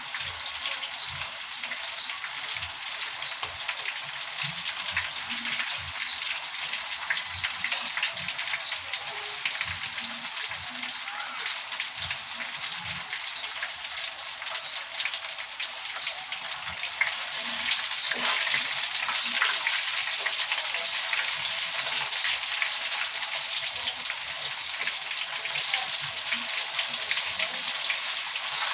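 Chicken pieces frying in hot canola oil: a steady crackling sizzle that grows louder about seventeen seconds in.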